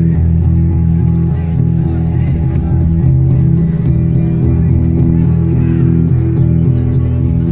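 Music: plucked guitar with deep, sustained bass notes.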